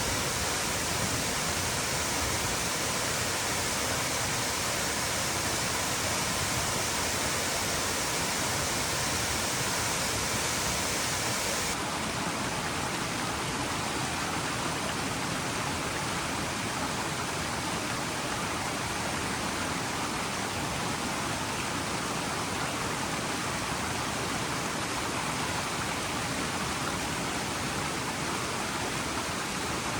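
Steady rushing water noise, like heavy rain or a torrent, with no distinct drops or events. About twelve seconds in, the sound changes abruptly and loses its brighter hiss.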